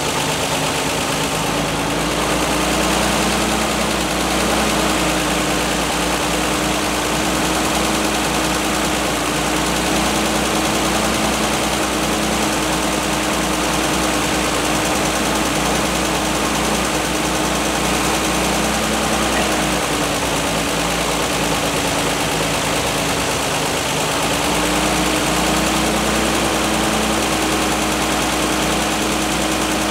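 International R-185 fire truck's engine idling steadily on its first start after sitting about six years. Its speed sags a little past the middle and picks back up near the end.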